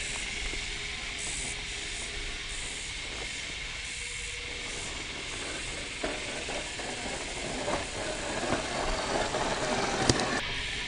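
1/6-scale FMS Jimny RC crawler working over dry pine needles, roots and twigs, its tyres crackling and snapping louder in the second half, with one sharp snap about ten seconds in, over a steady hiss.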